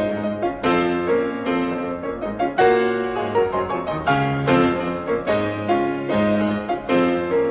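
Solo piano music, a slow run of chords struck about once a second, each ringing on into the next.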